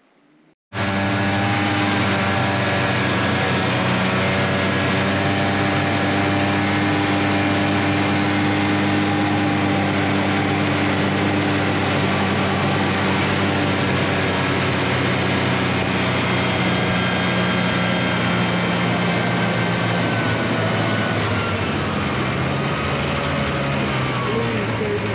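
Snowmobile engine running steadily under way, cutting in abruptly about a second in; near the end its pitch drops as it slows.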